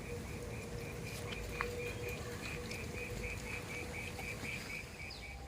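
Rhythmic high-pitched chirping, about four even chirps a second, with a faint steady hum underneath and a couple of soft clicks.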